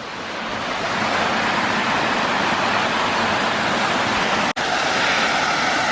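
Rushing mountain brook: a steady wash of running water that swells over the first second and cuts out for an instant about four and a half seconds in.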